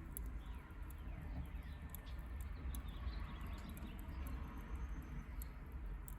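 Small birds chirping in many short, falling calls, with scattered faint clicks over a steady low rumble.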